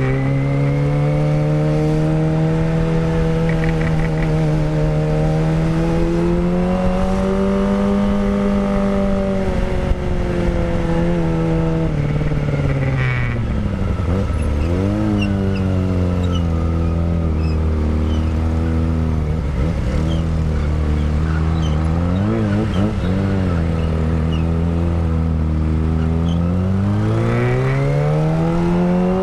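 Kawasaki Ninja ZX-25R's 250cc inline-four engine running through a Villan Pro 1 full-system exhaust while riding. The revs climb slowly, fall off sharply about halfway through, stay lower and uneven for a while, then rise again near the end.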